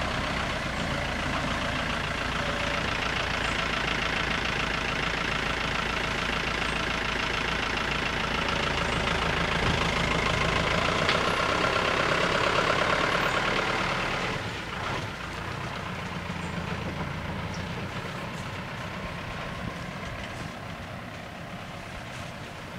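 A heavy engine running steadily at idle, growing a little louder, then dropping off sharply about two thirds of the way through.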